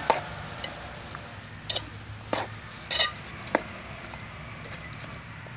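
Steel ladle clinking and scraping against the sides of a metal cooking pot as a thick vegetable curry mixture is stirred. There are about six sharp clinks, spaced irregularly, with the loudest about three seconds in.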